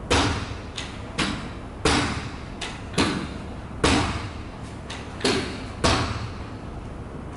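Carpet knee kicker being bumped with the knee to stretch the carpet taut: a string of about seven dull thuds a little under a second apart, with a few lighter knocks between them. Each thud rings on briefly in a large, bare room.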